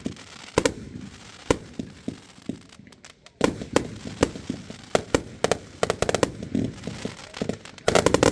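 Fireworks going off: a few separate bangs in the first seconds, then a dense run of bangs and crackling reports from about three and a half seconds, ending in a rapid volley.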